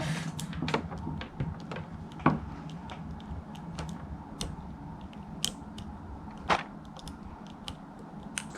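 Scattered small clicks and taps of plastic action-figure parts being handled and posed, coming at irregular intervals over a low hum.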